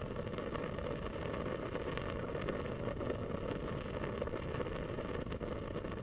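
Tabletop mist humidifier bubbling: a dense, steady run of small pops and gurgles.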